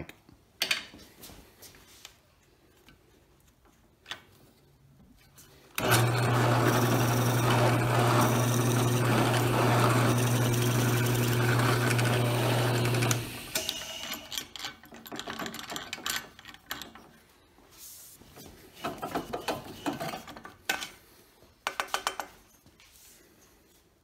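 A drill press runs with a steady motor hum for about seven seconds while a 7 mm bit bores down through a basswood pen blank, then stops abruptly. Scattered knocks and clatter follow as the blank and shavings are handled.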